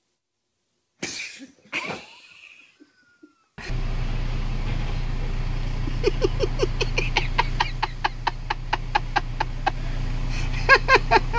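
Water rushing steadily from a broken water main, over a low engine hum, with a person laughing in quick repeated bursts over it through the last five seconds. Two brief sounds come about a second in, before the rush starts.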